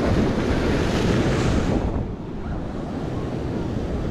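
Ocean surf breaking against a rock ledge and washing over it, with wind buffeting the microphone. The crash of the wave is loudest in the first two seconds, then eases into a lower wash.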